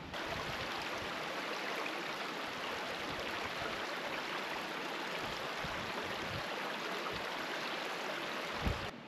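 Steady rush of a flowing stream, an even wash of water noise with no pauses, cutting off suddenly near the end.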